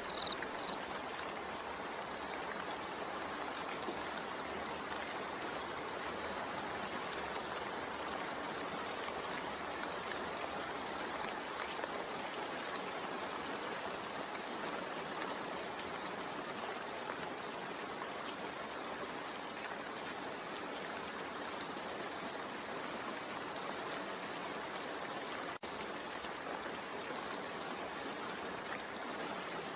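Steady rain, an even hiss with one brief dropout near the end. A few short, high cricket-like chirps are heard at the very start.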